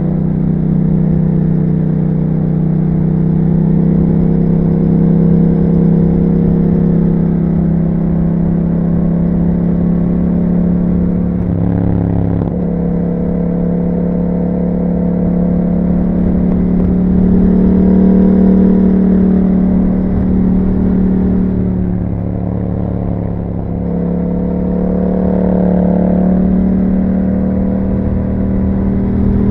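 2021 Yamaha MT-07's 689 cc parallel-twin engine running through an aftermarket Akrapovic exhaust while riding, held at fairly steady revs that rise and fall gently. About twelve seconds in there is a brief break in the engine note, as at a gear change. Around two-thirds of the way through the throttle eases off and the note drops, then it picks up again.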